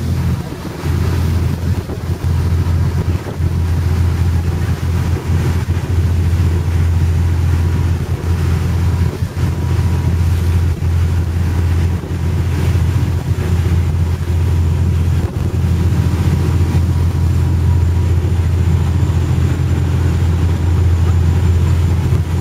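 Island ferry's engine running with a steady low drone while under way, with wind buffeting the microphone in irregular gusts.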